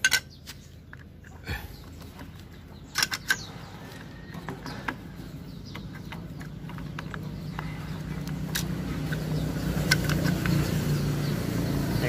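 Scattered metal clicks and light knocks of motorcycle clutch parts being fitted by hand, the sharpest a few clicks about three seconds in. Under them, the engine rumble of road traffic grows steadily louder over the second half.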